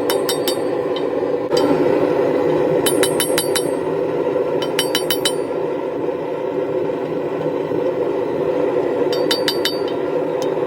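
Steel clinking and ringing in short rapid clusters of five or six strikes, four times, over a steady rushing noise.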